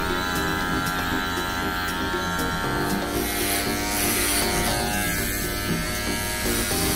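Electric hair clippers buzzing as they shave short hair close to the skin at the neckline and temple. Background music plays alongside and fades about three seconds in, leaving the clipper buzz.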